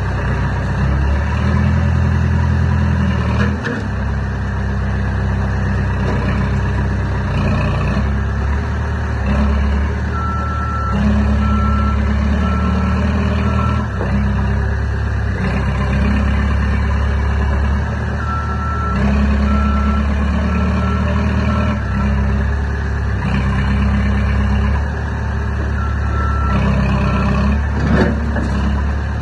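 Caterpillar heavy machine's diesel engine running and working, its note rising and falling with changes of load and revs. A reversing alarm beeps in three separate spells as the machine backs up.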